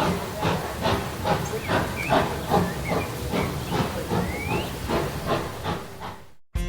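Steam locomotive chuffing: evenly spaced exhaust beats about two to three a second over hiss, with a few short squeals. It cuts off suddenly near the end.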